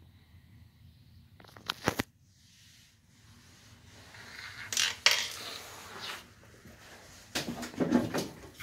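Small hard clinks and clatter, like light objects knocking against metal or dishware: two sharp knocks about two seconds in, a rattling stretch midway with one sharp clink, and a quick run of clatter near the end.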